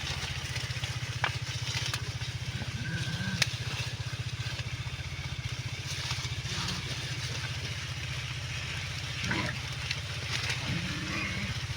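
A small engine running steadily, with a few sharp clicks.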